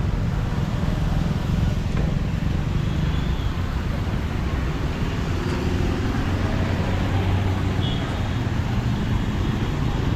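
Steady road-traffic noise of passing vehicles, with a continuous low rumble and a few faint short high tones late on.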